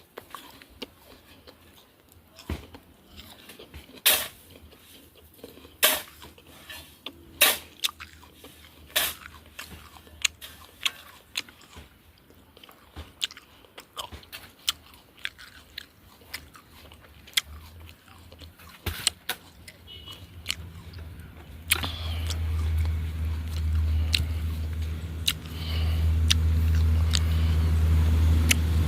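Gravel crunching and scraping in sharp strokes a second or two apart, as sand and gravel are cleared off the road. About three-quarters of the way through, a steady low rumble of a motor vehicle starts and grows louder.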